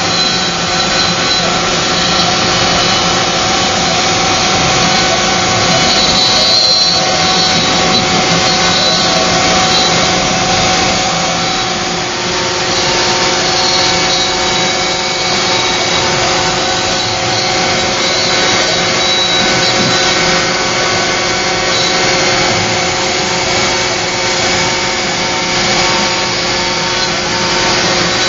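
Router spindle on a Joe's 4x4 Hybrid CNC machine running at a steady whine while its bit carves a relief into a softwood disc, with a continuous rasp from the cutting.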